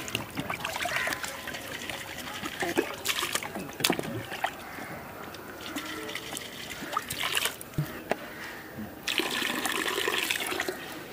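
Water pouring and splashing as hollow bamboo tubes are washed out inside, with a few sharp knocks and a louder gush of water near the end.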